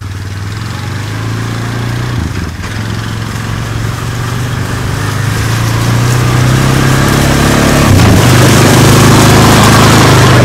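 Honda Foreman 500 ATV's single-cylinder engine running steadily, getting louder over the first eight seconds or so, with brief dips in pitch about two and a half and eight seconds in.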